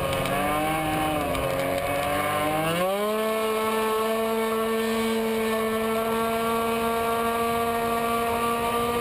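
Tuned two-stroke racing scooter engine at full throttle, heard onboard. The pitch wavers through a bend, then climbs sharply about three seconds in to a high, steady note that holds as the variator keeps the engine at peak revs down the straight.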